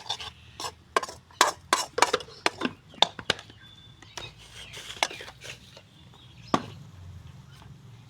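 A spoon knocking and scraping in a cooking pot as the spices are stirred into the chicken: a quick run of sharp clicks for the first few seconds, then a few scattered knocks.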